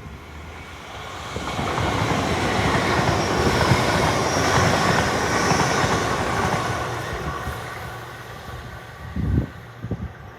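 Class 803 electric multiple unit passing through the station: a rushing wheel-and-air noise that swells, holds loud for a few seconds and fades away. A few short low thuds follow near the end.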